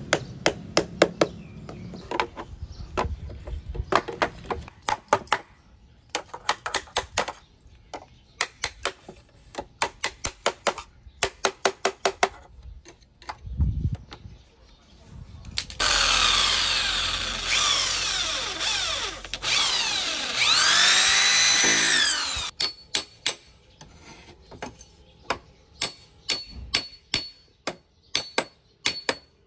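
A heavy cleaver knocking on a bamboo chair frame in quick runs of sharp strikes. About midway, a power drill bores into the bamboo for roughly six seconds, its pitch swelling and falling. Then light, quick ringing taps drive a thin bamboo peg into the joint.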